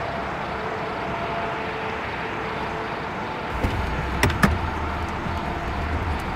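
A car idling steadily, joined about three and a half seconds in by a low rumble, with two sharp clicks of a car door latch as the door is opened.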